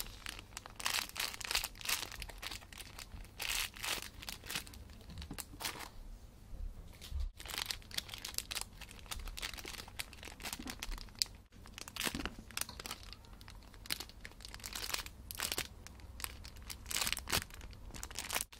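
Clear plastic bags crinkling and rustling in irregular bursts as squishy toys are handled and squeezed inside them.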